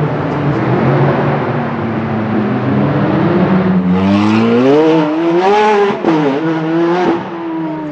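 Ferrari 430 Scuderia's V8 through a Novitec Rosso exhaust, accelerating hard. The engine runs steadily at first, then its note climbs, drops sharply at a gear change about six seconds in, climbs again and eases off near the end.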